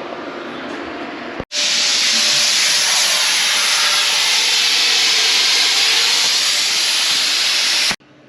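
A loud, steady hiss that starts and stops abruptly, lasting about six seconds.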